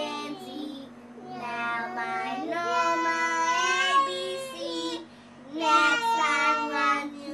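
A young girl singing a song without accompaniment, in phrases with short breaks about a second in and near five seconds, holding a long note in the middle.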